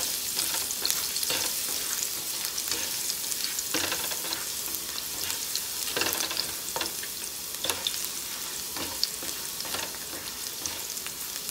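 Minced garlic sizzling in hot olive oil in a frying pan, with the irregular scrapes and taps of a spatula stirring it against the pan.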